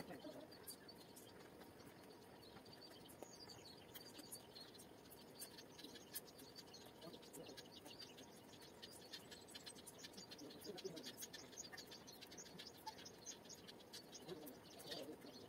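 Near silence: quiet room tone with faint, rapid high ticks and scratches.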